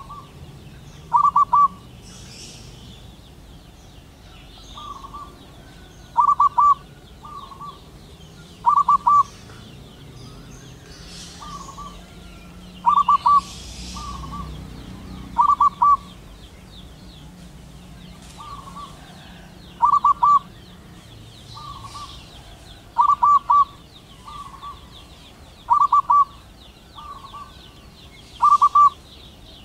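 Zebra dove (perkutut) cooing: a short, rapid staccato cooing phrase repeated about every two to three seconds, with fainter phrases between the loud ones. This is a male's call to a female.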